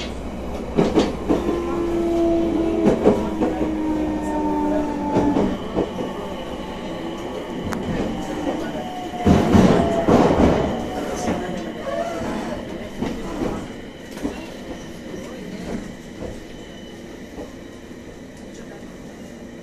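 Abukuma Express electric commuter train running, heard from inside the car: steady running noise with rail-joint clicks, and wheel squeal in a few long held tones in the first seconds and again a little past the middle. The loudest rumble comes about halfway, and the sound grows quieter toward the end.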